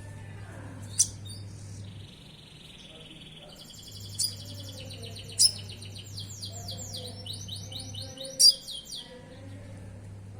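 Sunbird song: rapid high-pitched twittering trills and quick downward-sweeping notes, broken by loud sharp chirps about a second in, around four and five and a half seconds, and again near the end. A steady low hum runs underneath.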